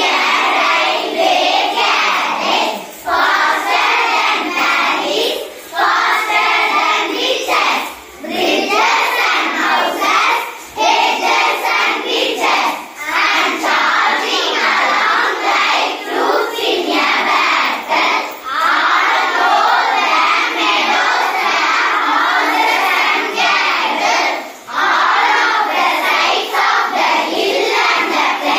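A group of schoolgirls chanting a memorized poem together in unison, phrase by phrase, with short breaks between phrases every few seconds.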